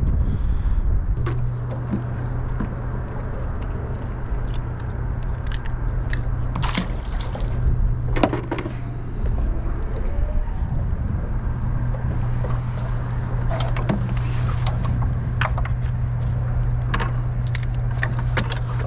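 A small motor humming steadily, cutting out for a couple of seconds midway, with scattered light clicks and knocks over it.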